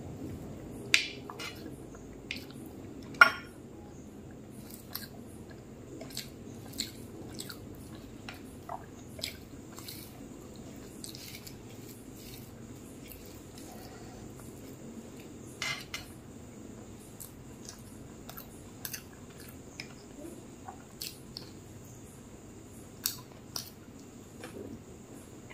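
Fingers mixing rice and omelette on a plate by hand, with scattered sharp clicks of the hand against the plate, the loudest about one and three seconds in, and close-miked chewing.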